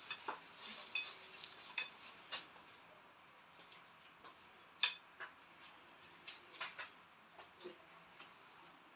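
A wire-mesh sieve and a spoon clinking and tapping against a stainless steel mixing bowl and a glass bowl while flour is sifted. A flurry of light clinks comes in the first two seconds or so, then one sharper clink about five seconds in, then a few scattered taps.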